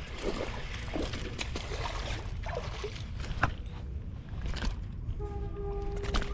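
A hooked smallmouth bass splashing at the surface beside the boat as it is reeled in and swung aboard, with sharp clicks and a steady low rumble. A brief steady hum comes in about five seconds in.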